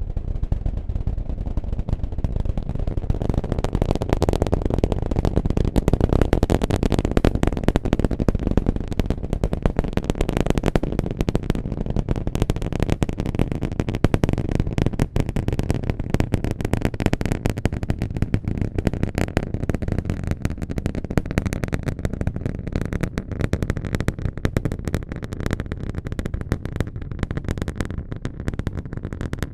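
SpaceX Super Heavy booster's 33 Raptor engines at liftoff: a dense, continuous crackling over a deep rumble.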